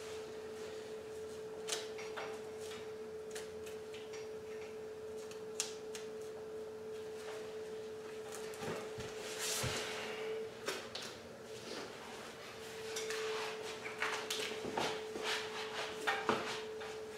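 Scattered small clicks, scrapes and rustles of hands and a knife working the hide off a hanging deer carcass, busiest near the end, over a steady high hum.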